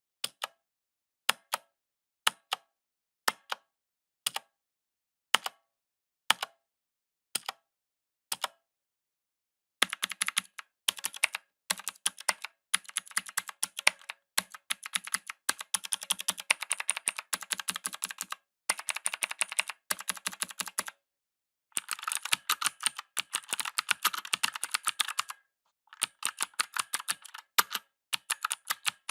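Mechanical keyboard keys clicking. At first single keys are pressed one at a time, about once a second. From about ten seconds in, fast typing comes in bursts with short pauses.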